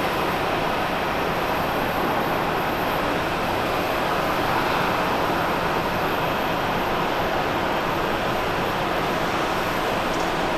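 Boeing 777-200 airliner's jet engines heard from a distance as it flares and lands: a continuous, even rushing noise with no distinct changes.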